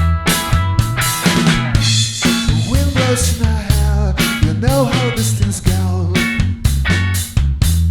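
Rock band playing an instrumental passage: a steady drum-kit beat under a bass line, with bending pitched lines from an instrument in the middle.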